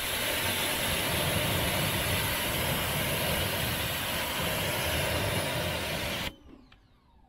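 Pressure washer spraying a steady jet of water at a wheel, rinsing off a spray-on sealant: a loud, even hiss over a low motor hum, starting abruptly and cutting off about six seconds in.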